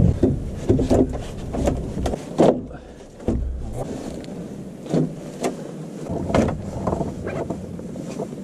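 Irregular knocks and clicks at an uneven pace, with a low rumble that fades out about two seconds in.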